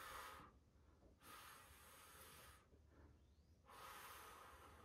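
A person breathing slowly and faintly: three long breaths, each about a second long, with pauses between.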